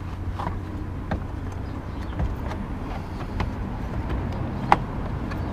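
Small clicks and knocks from hands twisting and pulling at a stuck fog light in the plastic front bumper of a 2004 Mercedes SLK 350, with one sharp click about three-quarters of the way through. A steady low rumble runs underneath.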